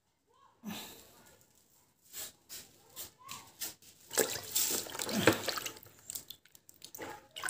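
Hand splashing and rubbing tomatoes and carrots in a basin of water, with irregular swishes and drips. The splashing is loudest around the middle of the stretch.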